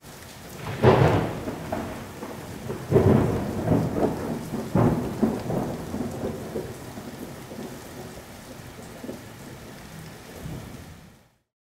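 Thunderstorm: steady rain with rolls of thunder, the loudest about a second in and again around three and five seconds, dying away and fading out near the end.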